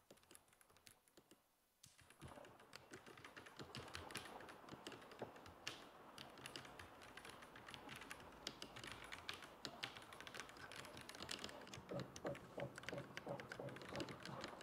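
Typing on a MONKA AE98 gasket-mounted mechanical keyboard with PBT keycaps and a PC plate. A fast, steady run of keystroke clicks starts about two seconds in and continues without a break.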